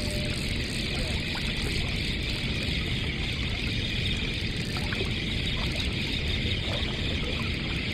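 Steady rushing river water with a fluttering wind rumble on the microphone.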